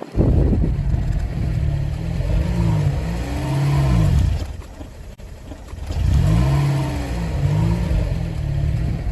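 Car engine running and revving, its pitch rising and falling several times over a low rumble, with a brief break about halfway through.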